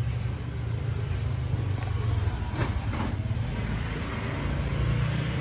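A motor vehicle engine running steadily, heard as a low rumble, with a brief faint rising sound about two and a half seconds in.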